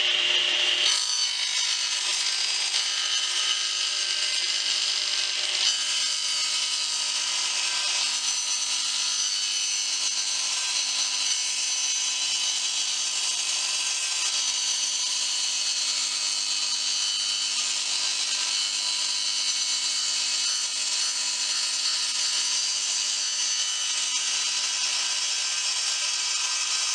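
Table saw running steadily while its blade is slowly raised to cut up into the underside of a wooden template held flat on the table. The sound shifts abruptly about a second in, then holds even.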